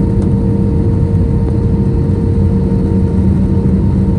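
A jet airliner's engines heard from inside the cabin: a loud, steady drone with a constant low hum.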